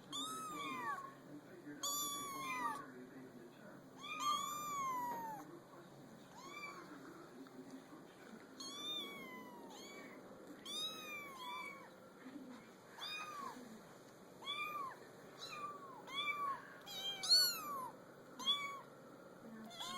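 Kittens mewing over and over: short, high, thin calls that rise and fall in pitch, about one every second or so, with calls from more than one kitten overlapping near the end.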